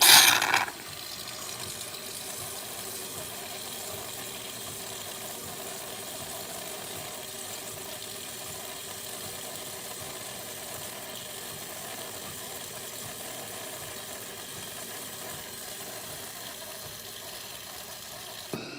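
De'Longhi Eletta fully automatic coffee machine running steadily, with a brief loud burst at the very start and a sudden stop near the end.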